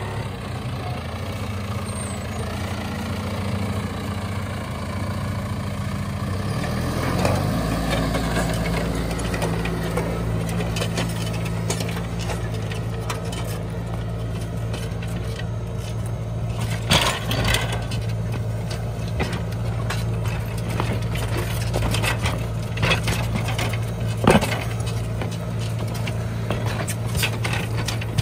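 John Deere 6115M tractor engine running steadily under load while ploughing, its note changing about a quarter of the way in. Crackling and a few sharp cracks through the second half as the plough breaks up the soil.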